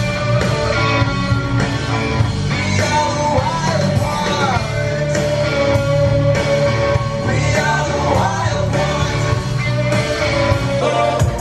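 A rock-style song with a singing voice holding long notes over a bass-heavy backing.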